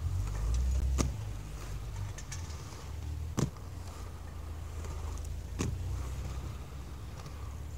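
Inline skate wheels rolling on the concrete of a skate bowl, a steady low rumble. Three sharp clicks come about one, three and a half and five and a half seconds in, the middle one the loudest.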